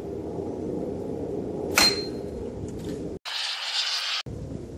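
One sharp hammer blow on metal, with a short high ring, marking a Dana 35 axle's differential bearing cap, about two seconds in. There is a steady low background throughout and a brief hiss near the end.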